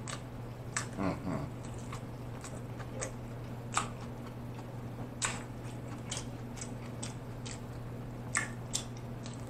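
Close-miked chewing of a thick stuffed pizza: scattered wet mouth smacks and clicks at irregular intervals over a steady low hum.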